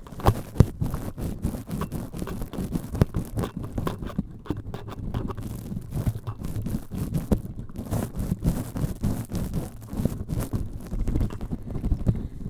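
Close-up scratching and scrubbing directly on a microphone, an irregular run of short scrapes and taps.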